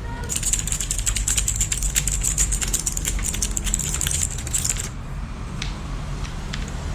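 Fast typing on a Leaven K550 mechanical keyboard: a dense clatter of keystrokes for about five seconds, then a few single key presses.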